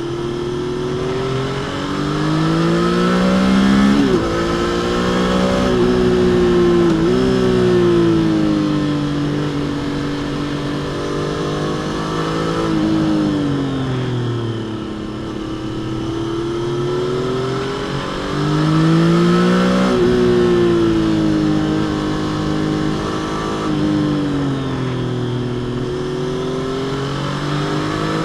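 Stock Triumph Trident 660's inline-three engine under way, pulling up in pitch, upshifting with a sudden drop in pitch about four seconds in and again about three seconds later, then falling away on closed throttle. It pulls hard and backs off again several more times.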